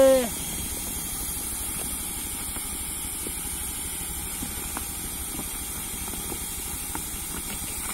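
Handheld hot-air welding gun blowing a steady high hiss as it heats the overlap seam of a geomembrane sheet, with a low steady hum underneath. A brief pitched call sounds right at the start.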